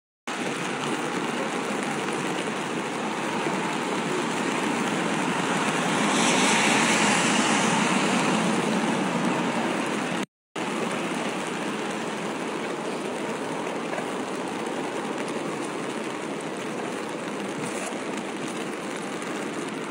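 Steady rushing noise of heavy rain, in two clips joined by a brief cut about ten seconds in; it swells a little partway through the first clip.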